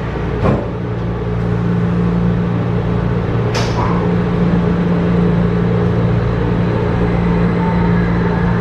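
MRT metro train running, a steady low hum with a knock about half a second in and a sharper metallic clack about three and a half seconds in.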